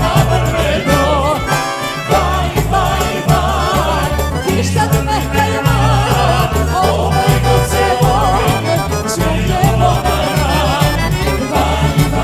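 Albanian folk-pop (popullore) music with a steady, driving bass beat under a wavering, ornamented melody line.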